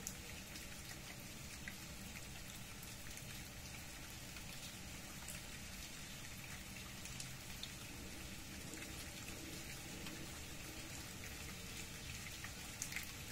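Steady rain falling on tree leaves and the leaf-covered ground, with many scattered single drops ticking.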